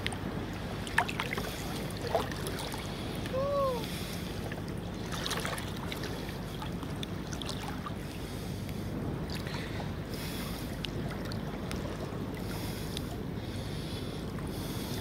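Steady wind on the microphone over gently lapping shallow lagoon water. A couple of sharp clicks come in the first few seconds, and a short rising-then-falling tone sounds about three and a half seconds in.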